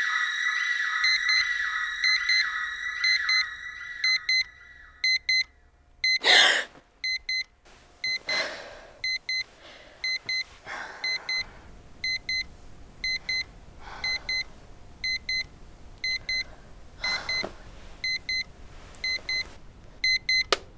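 Digital alarm clock beeping in quick pairs about once a second, as a high fluttering tone fades out over the first few seconds. About six seconds in comes a loud, sharp gasp, followed by softer heavy breaths between the beeps.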